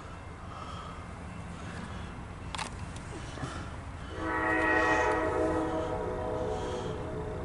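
Diesel locomotive air horn on an approaching CSX coal train sounding one long chord about four seconds in, loudest just after it starts and fading away, over a steady low rumble. A single sharp click about two and a half seconds in.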